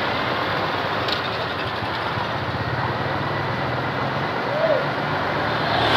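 Mitsubishi Fuso The Great heavy truck's diesel engine running steadily, a low even hum under a broad rumble.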